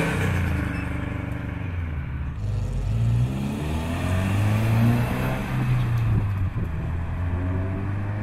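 Subaru Impreza flat-four engines accelerating away one after the other: one car's exhaust note fades, then the next car's engine note climbs twice as it pulls off.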